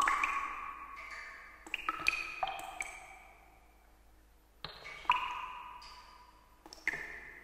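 Bright bell-like chime pings in small clusters, each ringing out and fading slowly, with an almost silent gap of about a second in the middle: synthetic sound effects for an animated title sequence.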